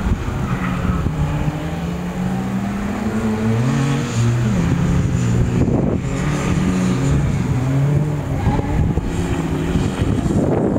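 Toyota Starlet rally car's engine under hard driving, its note rising and then dropping back in steps as the driver works through the gears.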